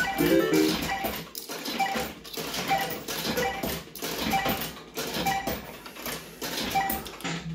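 Bell-Fruit Cash Explosion fruit machine sounding off: a short electronic tune in the first second, then a beep repeating a little faster than once a second over continuous rattling clicks.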